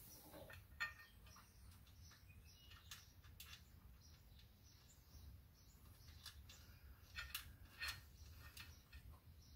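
Near silence, with a few faint, scattered clicks as a steel bolt is threaded finger-tight into a skid plate bracket by hand.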